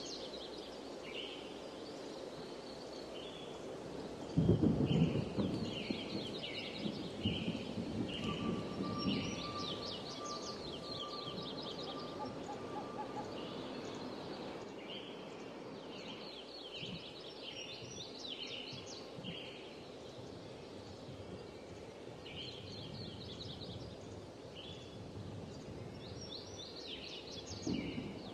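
Birds calling in repeated bursts of short, quick chirps over a soft background hiss, with a low rumble about four seconds in.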